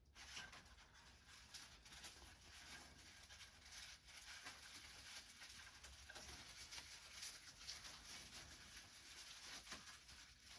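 Faint rustling and light, irregular tapping of small handling noises at a workbench.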